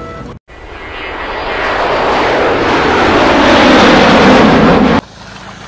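Loud rushing wind and motorcycle noise on the phone's microphone while riding, building up over about four seconds and cutting off abruptly near the end. It opens with a moment of petrol-pump hum with a few steady tones, then a brief gap.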